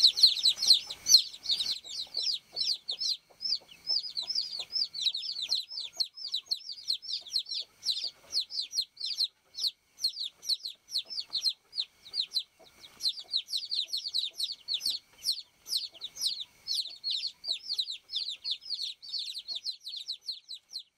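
Baby chicks peeping continuously. It is a quick, unbroken stream of short, high chirps that fall in pitch, several a second, loudest in the first couple of seconds.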